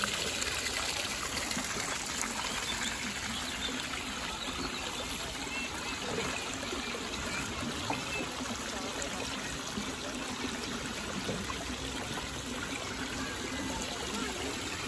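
Shallow water running and trickling steadily through the stone channels of a playground water course.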